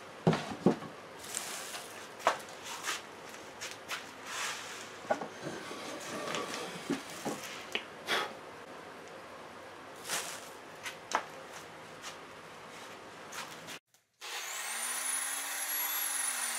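Hand tools and wood being handled on a workbench: scattered clicks, knocks and rubbing. Near the end this cuts off and a swooshing sound effect starts, its pitch rising and then falling.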